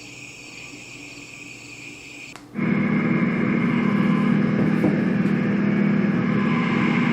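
An Etekcity white noise machine's speaker playing its recorded cricket chirping sound. About two and a half seconds in, a brief click, and it changes to the next sound, a much louder steady low rumble like heavy machinery.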